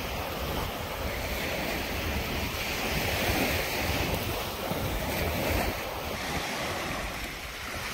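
Small surf waves washing onto a sandy beach, with wind buffeting the microphone in an uneven low rumble.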